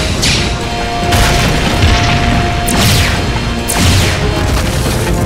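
Cartoon action sound effects: several rocket whooshes and explosion booms in quick succession, over action music.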